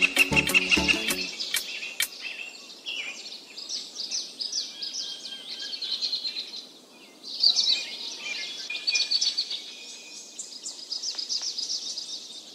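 Small birds chirping and trilling in quick, overlapping phrases, a birdsong ambience over a faint hiss. Background music stops about a second in.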